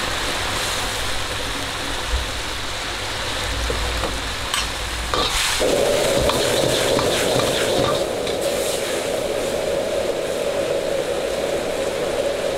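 White eggplant sizzling as it is stir-fried in a pan, with a few sharp clicks of a utensil about five seconds in. Just before the sizzle steadies, a louder, steady rushing sound starts.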